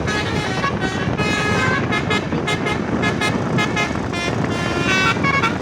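Basuri telolet musical horn playing a quick run of changing notes, over steady traffic noise.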